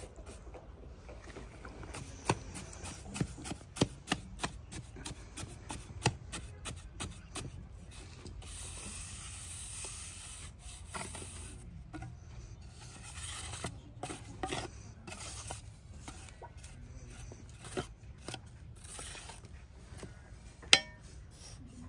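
Steel trowel scraping and packing damp, gritty cement mix into a bowl mould. Rasping scrapes are broken by sharp clicks and taps of the blade. A longer stretch of scraping comes about nine seconds in, and the loudest tap comes near the end.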